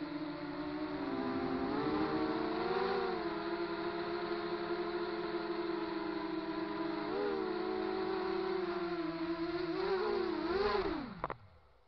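Racing quadcopter's four Multistar 2206 2150 kV brushless motors with 5-inch props whining, heard from on board, the pitch rising and dipping with throttle. About 11 seconds in the whine drops sharply in pitch and stops as the motors spool down on landing.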